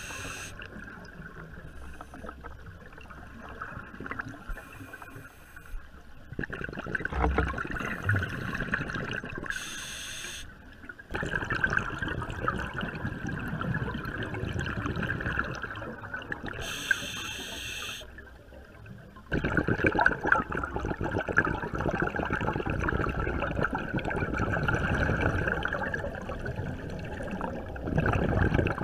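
Water sloshing and rushing, muffled as heard by a submerged camera. It jumps louder and quieter every few seconds, with a few short hissing bursts.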